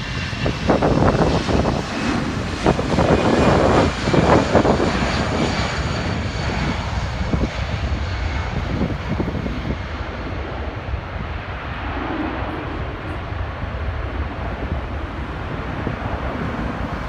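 Airbus A320-214 jet engines at takeoff thrust: a steady roar with a faint high whine slowly falling in pitch. It is loudest over the first few seconds of the takeoff roll, then eases a little as the jet lifts off and climbs away.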